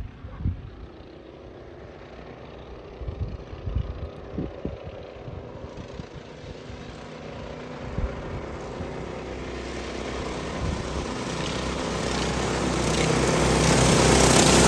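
Go kart's Predator 212cc Ghost single-cylinder four-stroke racing engine running at speed as the kart approaches, the engine note growing steadily louder and peaking as it comes close near the end.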